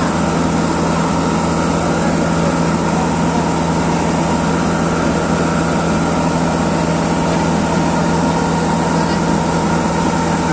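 Steady drone of a combine harvester's diesel engine and unloading auger running, with a tractor idling alongside, while paddy is unloaded into the tractor's trailer.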